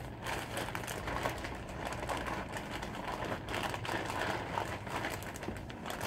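Thin plastic bag crinkling and rustling in the hands as it is opened: soft, irregular crackles.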